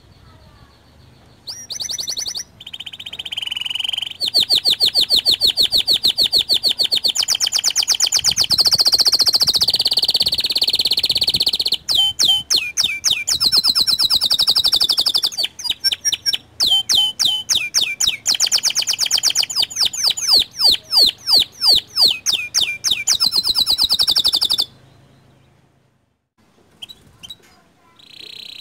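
Local canary singing a long, high song of fast trills and rapidly repeated chirping phrases, stopping about 24 seconds in, followed by a few faint chirps.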